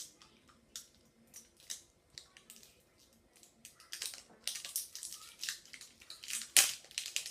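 Crinkling, crackling and clicking of packaging being handled as a toy surprise egg is opened. The sounds come in scattered snaps at first and grow busier and louder about halfway through, with one sharp crackle near the end.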